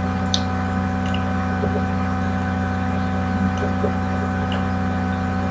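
Steady electrical hum with hiss, and a few faint clicks.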